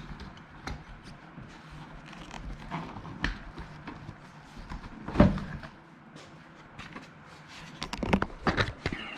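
Scattered clicks and knocks of a metal socket and plastic seat trim being handled, as an 8 mm socket is worked over the seat's plastic retaining clips. There is one louder thump about five seconds in and a quick run of clicks near the end.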